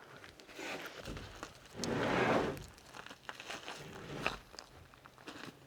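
Crinkling and rustling of material being handled, with footsteps and small knocks; a louder rush of rustling about two seconds in.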